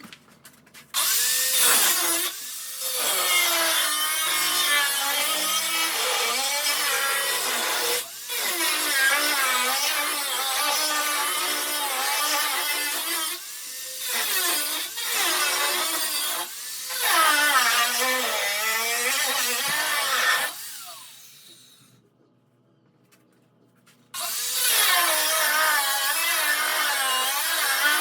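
Power saw cutting through a Jeep's sheet-metal body, its motor pitch wavering as the cut loads it, with several short breaks. About 20 seconds in it winds down and stops, then starts cutting again about two seconds later.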